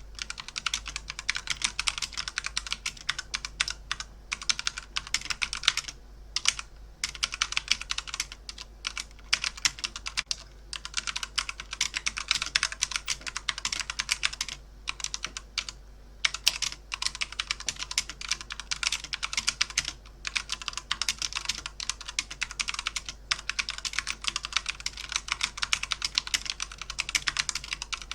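Computer keyboard being typed on fast: a dense stream of key clicks, broken by a few short pauses.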